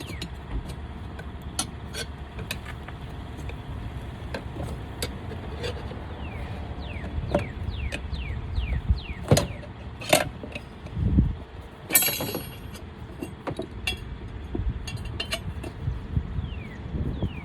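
Scattered metal clicks, clinks and knocks from hand tools working a small lawn mower tire off its rim, with a few louder knocks around the middle. Wind rumbles on the microphone throughout.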